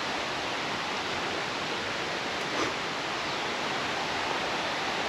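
Rushing water of a rain-swollen waterfall stream, a steady, even hiss.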